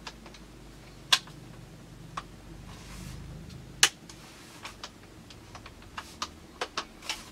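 Irregular sharp plastic clicks and taps from handling a polymer pump-action airsoft gun, with two louder clicks about one and four seconds in and a quick run of clicks near the end.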